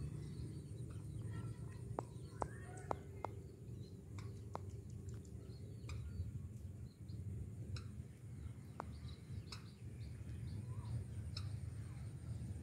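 Outdoor field ambience: small birds chirping and giving short sharp calls now and then, most of them in the first few seconds, over a low steady rumble.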